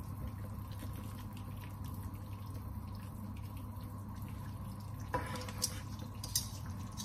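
Pot of lamb-leg broth simmering, with dripping as a stewed lamb leg is lifted out with metal tongs, and a light knock about five seconds in as the leg is set down on a wooden cutting board. A low steady hum runs underneath.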